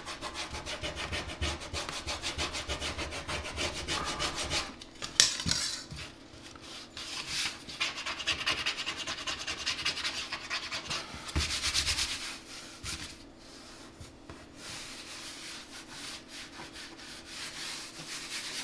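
Hands rubbing and scratching over glued-down wood panels on a countertop, the fingers feeling along the seams for a raised ridge. One sharp tap comes about five seconds in, and a faint steady hum runs underneath.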